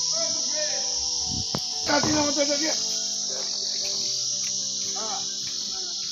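Steady, loud, high-pitched drone of an insect chorus from the surrounding trees, unbroken throughout.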